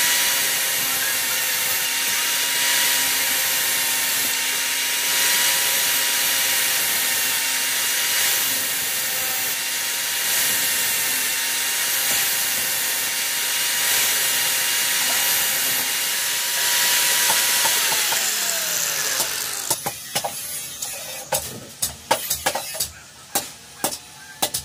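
Electric angle grinder with a thin abrasive disc grinding a steel blade blank: a steady whine over a grinding hiss. About eighteen seconds in it is switched off and the whine falls in pitch as the disc spins down. Sharp, irregular knocks follow in the last few seconds.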